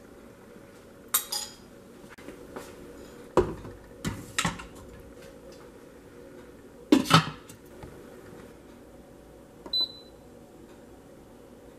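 Stainless steel Instant Pot inner pot and metal spoon being handled, with several sharp metallic knocks and clinks, the loudest about seven seconds in. Near the end, one short high beep from the Instant Pot Duo's control panel as its Yogurt button is pressed.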